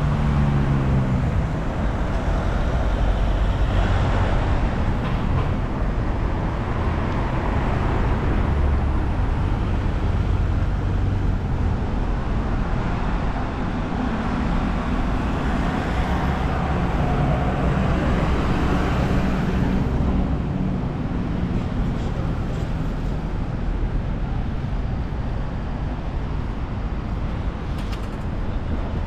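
Steady city road traffic: cars and buses running and passing. The drone of a heavier engine stands out near the start and again about midway.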